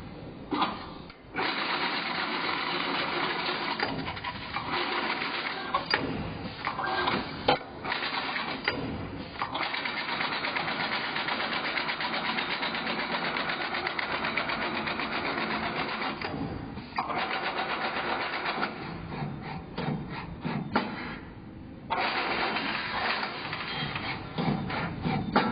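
BWZ-A flat coil letter bender running its automatic cycle of feeding, slotting and bending a flat metal strip. Long stretches of steady rapid mechanical noise are broken by sharp clicks and knocks and by short pauses, one near the middle and a longer one about three quarters of the way through.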